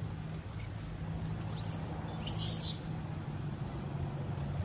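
A few short, high-pitched animal calls, the loudest about halfway through, over a steady low hum.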